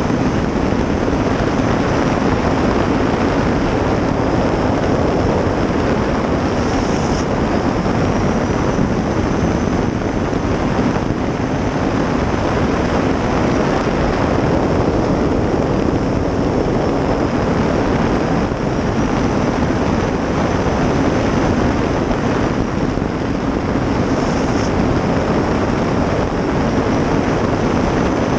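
Onboard sound of a 23-foot race jet boat powered by a 2000 hp gas turbine running at speed: a steady, dense rush of turbine, jet and water noise with wind on the microphone. A faint high whine sags and recovers a few times as the boat works the river.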